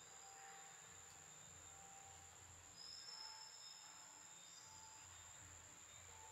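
Faint, steady high-pitched insect drone, with a short note repeating about every second and a half.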